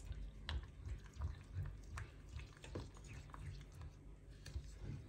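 Silicone spatula stirring thick cream and melting Nutella in a small metal saucepan: faint, irregular wet clicks and scrapes.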